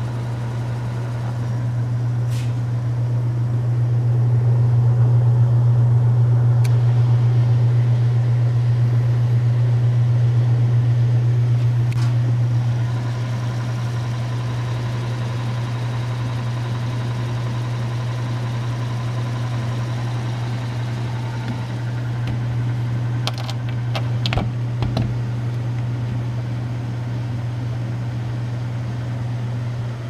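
The 1931 Frigidaire W-5 refrigerator's condensing unit (electric motor and flywheel compressor) running quietly with a steady low hum, just started after being charged with refrigerant. The hum swells for several seconds, then settles, and a few sharp clicks come near the end.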